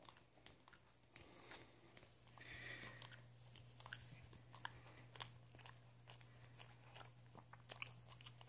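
Faint, irregular clicks and wet smacks of a small dog chewing and licking at its front paw, gnawing at the chewed-down stub of its dew claw, a compulsive chewing habit.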